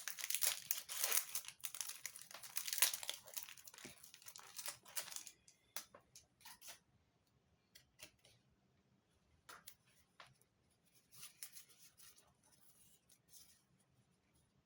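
A foil Pokémon TCG Fusion Strike booster pack wrapper being torn open and crinkled for about five seconds, then scattered light clicks and taps as the cards are handled.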